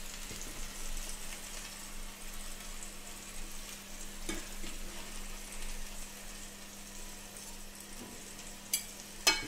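Clarified butter sizzling steadily in a hot pan of seared scallops. Near the end come a couple of sharp clicks of the fork.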